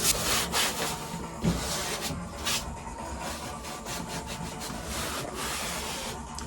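Hand brush scrubbing crumbling old headlining foam off a car's roof lining, in quick, uneven scraping strokes.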